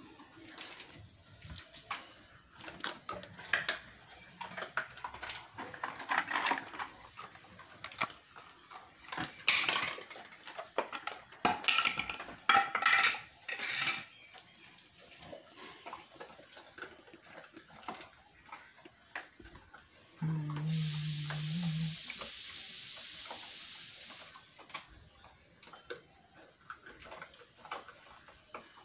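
Rottweiler chewing raw mutton bones: a run of sharp cracks and crunches, densest in the first half. About twenty seconds in, a steady hiss lasts about four seconds, with a low hum for its first second and a half.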